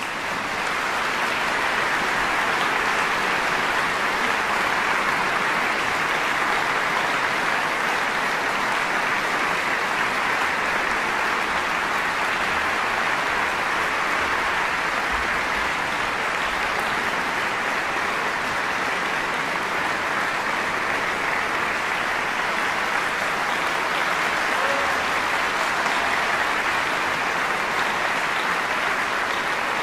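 Large audience applauding, a dense, steady clapping that holds at an even level throughout.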